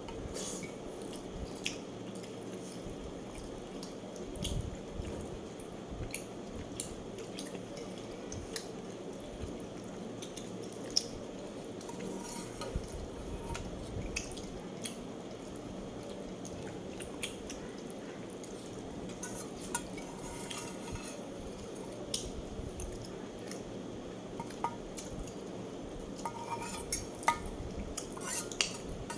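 Light clinks and taps of eating utensils against a plate, scattered over a steady low background hum, with a quicker run of clinks near the end.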